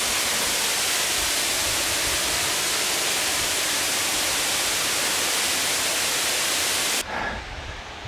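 Falls of Foyers waterfall plunging into its gorge pool: a steady, even rush of falling water. It cuts off abruptly about a second before the end, leaving a much fainter hiss.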